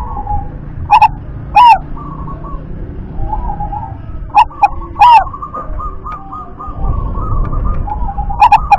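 Zebra dove (perkutut) cooing: loud staccato coo notes in short groups about a second in, around four to five seconds in, and again near the end. Between the groups comes a softer run of quick repeated coo notes.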